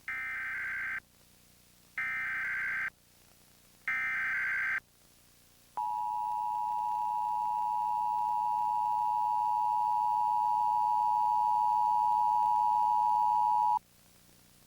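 Emergency Alert System test signal: three short, screechy digital header bursts about a second long each, then the steady two-tone EAS attention tone held for about eight seconds and cut off abruptly.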